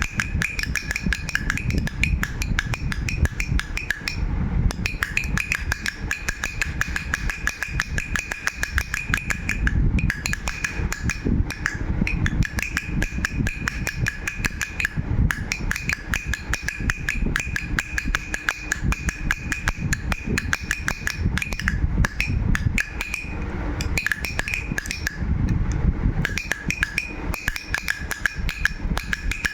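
Baby rattle shaken continuously: a fast, dense clatter of small clicks over a steady ringing note, stopping briefly a few times.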